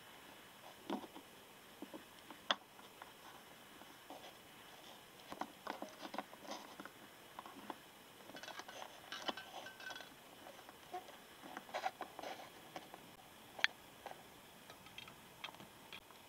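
Small plastic Littlest Pet Shop toy figures being handled and set down on a tabletop one after another: faint, irregular light taps and clicks, with a few sharper clicks.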